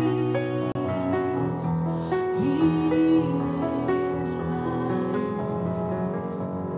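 A woman singing a gospel worship song into a microphone with long held notes, accompanied by keyboard chords. Her voice slides up into a note about two and a half seconds in.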